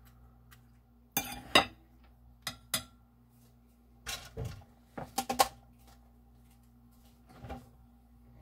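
Metal fork and spatula clinking and knocking against a ceramic plate and a pan: sharp clinks in four quick groups, then one softer knock near the end, over a steady low hum.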